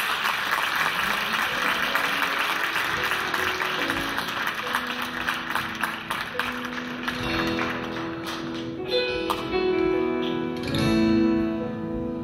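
Audience applause that dies away over the first several seconds while a solo acoustic guitar begins picking notes about four seconds in. By the end the guitar plays on its own with clear, ringing plucked notes.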